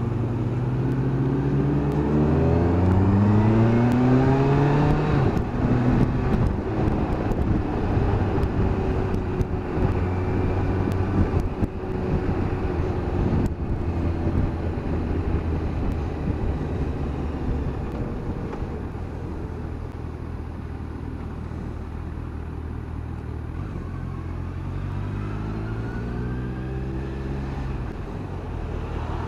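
Kawasaki Versys 1000LT's inline-four engine accelerating, its pitch rising over the first few seconds, then running steadily under wind rush, and climbing in pitch again near the end.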